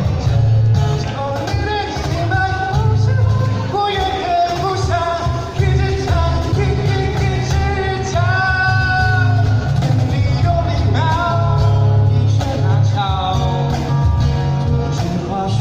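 Karaoke: a voice singing over a loud backing track with a strong, steady bass.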